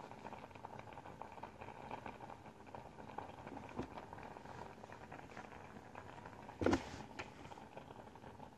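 Faint crackling and rustling handling noise on a phone microphone, with one brief louder thump about two-thirds of the way through.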